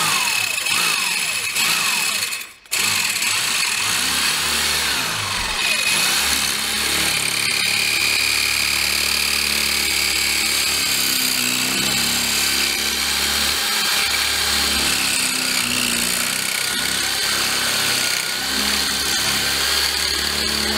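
Power drill with a masonry bit boring a hole into a concrete floor for an anchor bolt. It runs steadily, with a brief stop and restart about two and a half seconds in.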